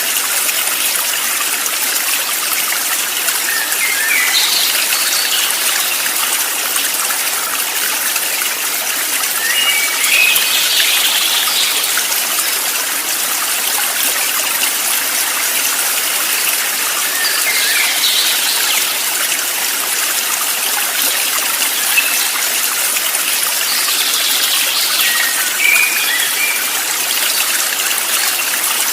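Steady running water of a stream, trickling and gushing. Brief clusters of high chirps come through about every six or seven seconds.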